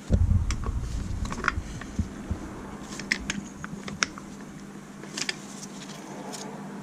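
Light metal taps and clicks of hand tools on engine parts, irregular and a few seconds apart, after a dull handling bump at the start. These are in keeping with a flathead screwdriver being tapped to bend a tab down on the starter clutch gear assembly.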